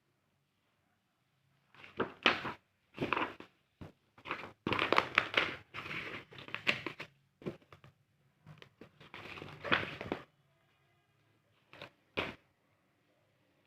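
Packaging being handled and opened: irregular crinkling, rustling and tearing in bursts, busiest in the middle, with short quiet pauses.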